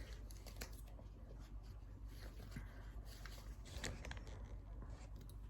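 Faint rustling and small scattered clicks of a fabric mask being handled and put on, over a low steady hum.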